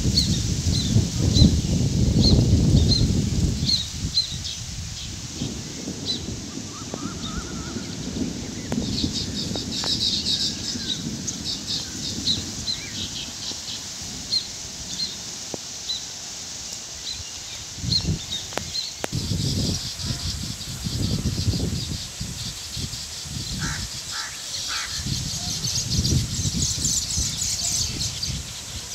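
Weaver birds at their nesting colony chirping: a steady run of short high chirps, with bursts of busier chatter about ten seconds in and near the end. Underneath are low gusts of wind rumbling on the microphone, loudest in the first few seconds.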